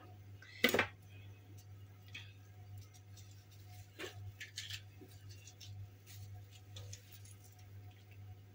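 Quiet handling sounds from gutting a mackerel on a cutting board: one sharp knock under a second in, then scattered soft clicks and rustles.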